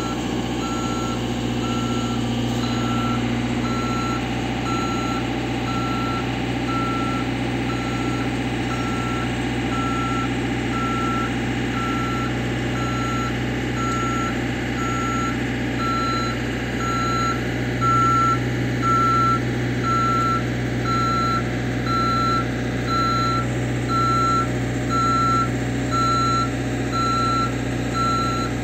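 Engine of a JLG telescopic boom lift running steadily under hydraulic load while its motion alarm beeps over and over as the boom telescopes. The beeps get louder about two-thirds of the way through.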